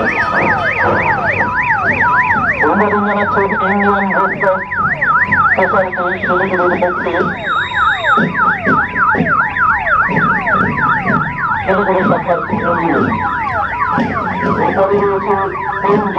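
Several emergency-vehicle sirens sounding at once from a fire engine and ambulances driving past in procession. A fast yelp warbles about four times a second and fades out about three quarters of the way through, over repeated falling whoops that keep going.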